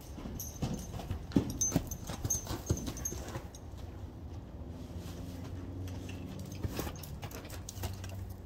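Horse's hooves striking arena sand, a run of irregular muffled steps about three a second in the first few seconds, then a low steady hum for a few seconds in the middle.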